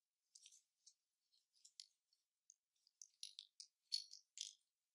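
Faint metallic clicks and light rattling as a 6 mm hex key from a folding key set turns the HP balance plug into an Apeks US4 scuba regulator first stage body. The clicks come closer together and grow sharper during the last two seconds.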